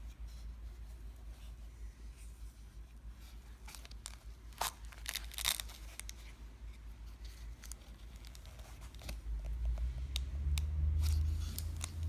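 Plastic wrapping crinkling and crackling as a wrapped lighter and its packaging are handled, with scattered sharp clicks that are loudest about halfway through. A low rumble comes in near the end.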